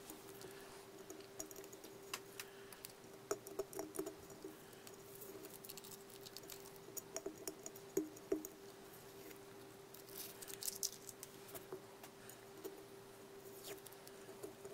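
Fingernails picking at and peeling masking tape off a glazed porcelain vase: scattered small clicks and scratchy crackles, with a couple of sharper ticks of nail on porcelain. A steady faint hum runs underneath.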